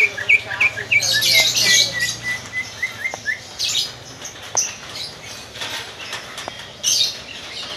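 Leafbird (cucak ijo) calling a run of short rising chirps, about three a second, for the first three seconds: the rapid repeated-note 'ngetrok' that keepers train for song contests. After that come a few brief harsh, noisy bursts and light knocks as the bird moves about the cage.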